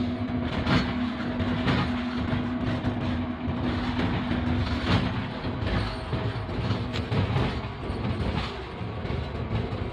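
GEU-40 diesel-electric locomotive running at speed, heard from inside the cab: a steady rumble with a steady hum that drops out about halfway through, and the wheels knocking over rail joints at uneven intervals.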